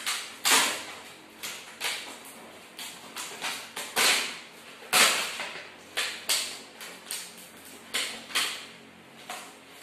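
Plastic packet crinkling and rustling as it is handled and opened, in sharp, irregular crackles about once or twice a second.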